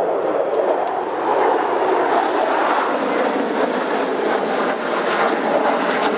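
Jet noise from four F-16 fighters flying over in tight formation: a loud, steady rushing noise that turns brighter and sharper about two seconds in.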